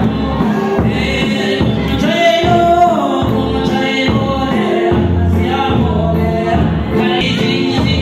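A congregation singing a gospel song together, with a large double-headed Mizo church drum (khuang) struck by hand in a repeated beat beneath the voices.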